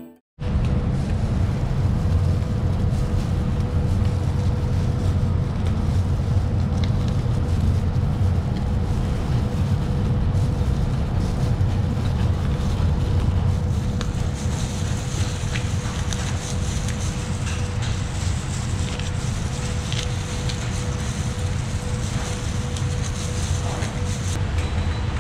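Steady low roar of a commercial kitchen's fans and wok burners, with a constant hum running through it. In the second half, light snapping and crackling as green peppers are torn by hand into a steel bowl.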